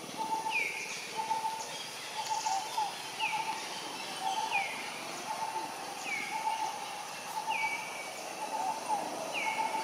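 Birds calling: one call falls in pitch and levels off, repeating about seven times at fairly even spacing, over a steady background of shorter chirps.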